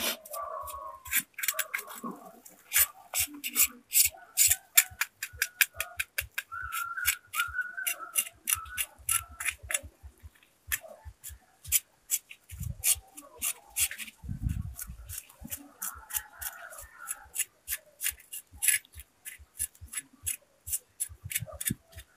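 Machete blade scraping the charred skin off a fire-roasted climbing perch: a fast, irregular run of sharp scratchy clicks, several a second, with a couple of low bumps about halfway through.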